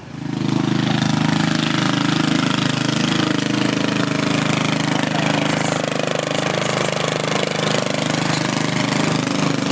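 A riding lawn mower's small engine comes in suddenly close by and then runs steadily, with a rapid, even beat.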